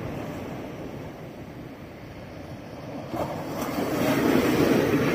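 Waves breaking and rushing up the beach. The surge swells about three seconds in and is loudest near the end.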